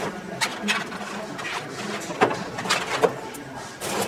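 Hands handling servos and their wires inside a hollow 3D-printed PLA fuselage: irregular light plastic knocks, rubs and scrapes over a faint steady hum.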